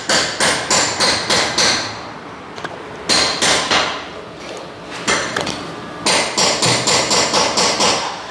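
Hammer striking metal in quick runs of blows, about four a second, each blow ringing briefly; the runs stop and start several times.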